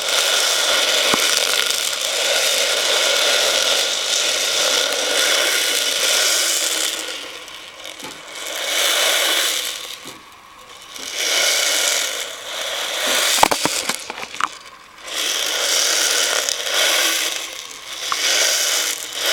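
Many small beads rolling and rattling around a plastic bowl as it is swirled. The sound is continuous at first, then comes in several separate swells of a second or two, with a few sharp clicks between them.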